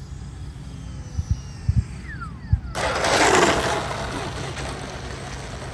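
FMS BAE Hawk 80 mm electric ducted-fan RC jet coming in to land. A faint fan whine falls in pitch. About three seconds in, a sudden loud rushing noise starts and slowly fades as the jet lands.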